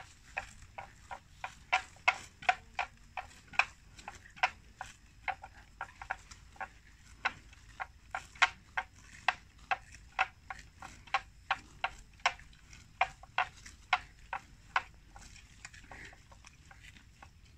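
Water buffalo grazing, tearing and cropping grass in a steady run of crisp rips at about two to three a second, which die away near the end.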